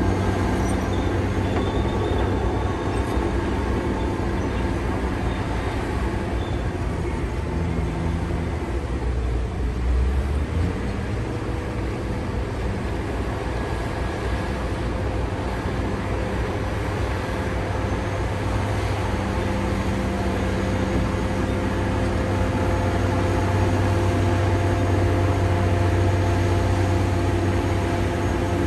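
Caterpillar D9T bulldozer's C18 diesel engine running steadily, a low drone with a brief surge about ten seconds in.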